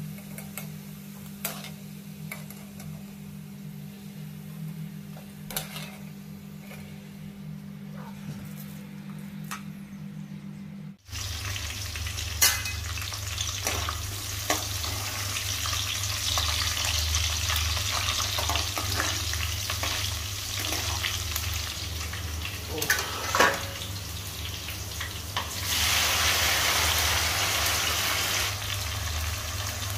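Oil sizzling in a frying pan while a steel spoon clicks and scrapes against it: quieter with scattered clicks at first, then a louder steady sizzle of chopped green chillies frying. The sizzle grows louder near the end as chopped tomatoes and onions go into the hot oil.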